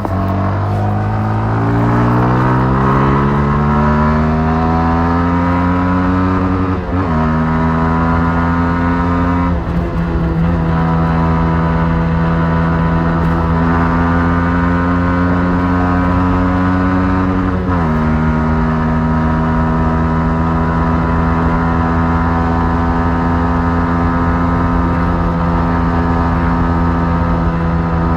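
Yamaha MT-15's single-cylinder 155 cc engine on its stock exhaust, pulling hard under acceleration with rising revs, then dropping in pitch at two upshifts, about seven seconds in and again near eighteen seconds. Between and after the shifts it holds nearly steady revs at cruising speed.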